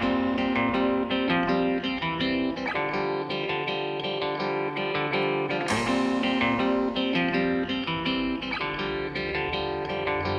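Background music: guitar-led track with plucked notes in a steady rhythm.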